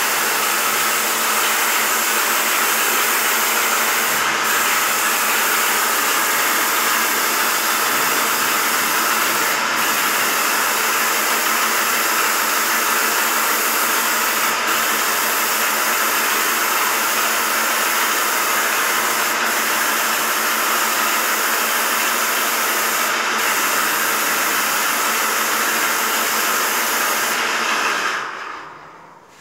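Airless paint sprayer spraying a ceiling: a steady, loud hiss with a low hum under it, which dies away near the end as the spraying stops.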